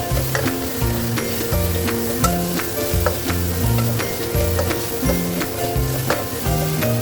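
Food sizzling in a hot pan while being stirred and tossed, with frequent short clicks and scrapes of the utensil against the pan. Background music with held low notes plays under it.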